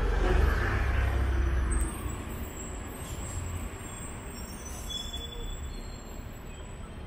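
Street traffic: a heavy vehicle's low engine rumble is loud at first and falls away about two seconds in, leaving a steady, quieter traffic noise.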